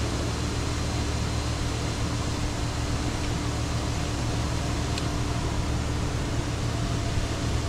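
Steady machine hum with a hiss over it, even in level throughout, and one faint click about five seconds in.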